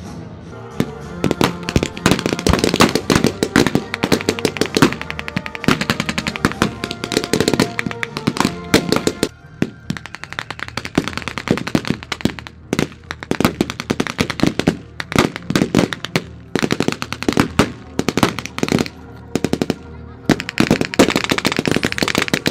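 Battle gunfire from reenactors' bolt-action rifles and other weapons firing blanks: dense, rapid strings of shots that run on with only brief lulls. Background music plays underneath.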